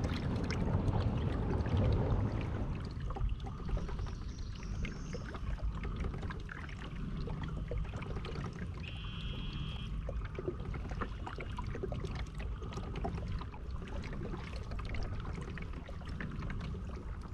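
Kayak being paddled: the paddle dipping and water splashing and trickling in many small irregular sounds, over a low steady rumble.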